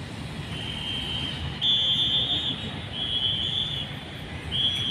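Steady road traffic rumble. Over it come several high, steady tones of about a second each, the loudest about two seconds in, from an unidentified source.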